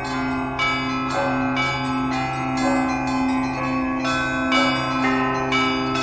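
Russian Orthodox church bells rung in a peal (zvon): a ringer strikes the bells about twice a second, each stroke ringing on over a steady low hum from the bigger bells.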